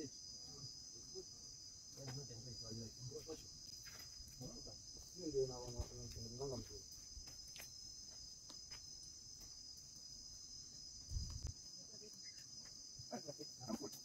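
Steady, high-pitched insect chorus that runs on without a break. Quiet voices talk briefly twice, the louder about halfway through, and there is a dull low bump near the end.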